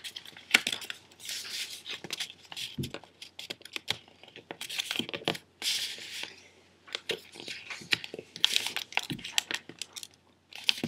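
Sheet of printer paper being handled and folded: crinkling rustles and sharp crisp clicks as creases are pressed down, in irregular bursts.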